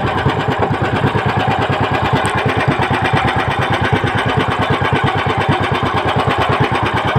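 Outrigger boat (bangka) engine running steadily under way, a fast, even chugging.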